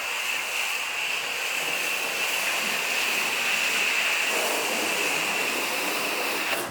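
Foam gun on a garden hose spraying soapy foam onto a car: a steady hissing spray with a faint high whistle in it, shut off abruptly at the very end.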